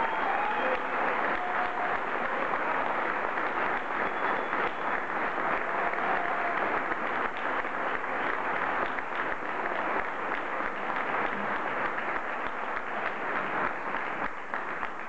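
Audience applauding steadily, many hands clapping, easing off slightly near the end.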